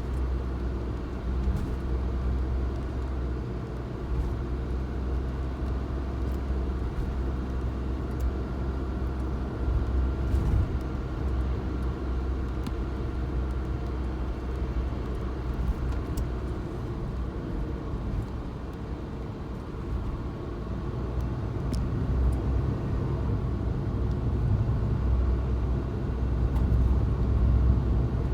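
Suzuki Jimny driving: a steady low engine and road rumble, dipping briefly about two-thirds of the way through and then building again.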